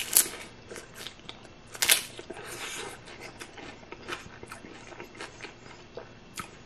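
A bite into a crunchy hard taco shell: a loud crunch at the start and another about two seconds in, then chewing with many small crunches as the shell breaks up.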